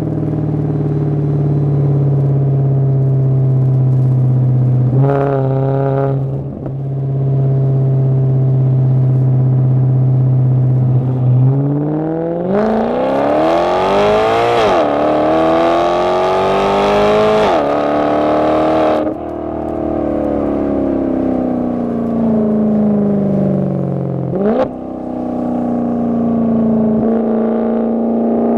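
Maserati Quattroporte Sport GT S V8 through a Tubi-style sports exhaust, heard from inside the cabin. It cruises at a steady note with a short rev blip, then accelerates hard about halfway through: the pitch climbs and dips at each upshift, and the exhaust is loud and raspy. It then eases off with falling pitch, gives a quick downshift blip, and settles back to a steady cruise.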